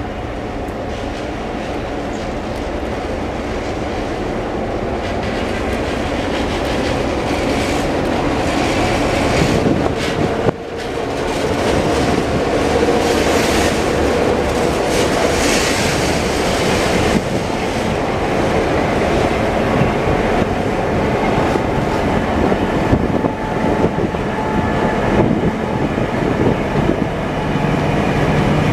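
A train passing close by, its steel wheels clattering over the rail joints. The sound grows louder over the first ten seconds or so and then stays loud.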